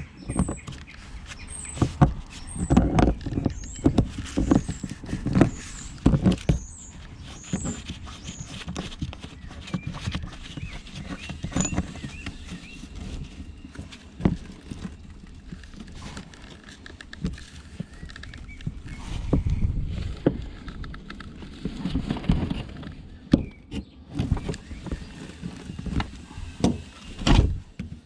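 Rubble and scrap being rummaged through in a skip: irregular knocks, clunks and scraping as objects are shifted and handled.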